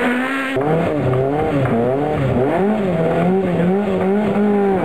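Rally car engines revved hard on a loose-surface stage. After an abrupt change about half a second in, the engine is a Mk1 Ford Escort rally car's, its pitch climbing and dropping several times with throttle and gear changes.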